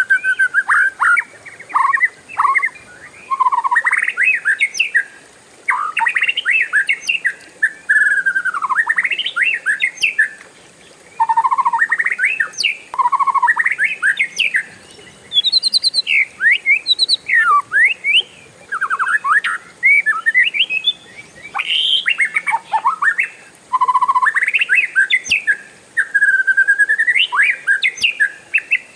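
Oriental magpie-robin (kacer) singing a long, varied song, nearly without pause: loud whistled phrases that sweep up and down, strung together with rapid trills, broken only by short gaps.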